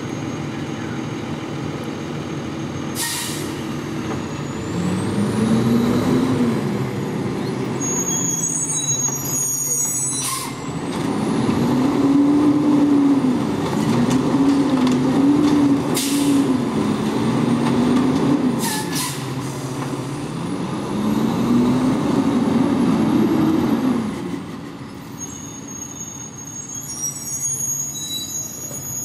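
Diesel garbage truck engine revving up and down repeatedly as it drives the hydraulic arm that lifts and dumps a cart into the hopper, with several short air-brake hisses.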